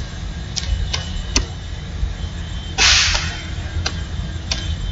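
Computer keyboard keys clicking one at a time as a word is typed, about half a dozen separate keystrokes, over a steady low hum. About three seconds in there is a short, louder burst of hiss.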